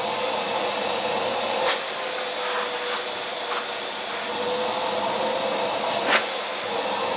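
Vacuum cleaner running steadily with a constant hum, with a few short knocks, the loudest about six seconds in.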